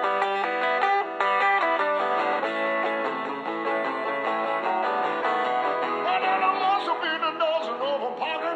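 Acoustic guitar strummed and picked through an instrumental break of a live country-rock song. A wavering voice comes in over the guitar in the last couple of seconds.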